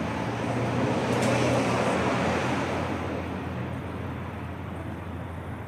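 A road vehicle passing by: its noise swells to a peak about a second and a half in, then slowly fades, over a steady low hum.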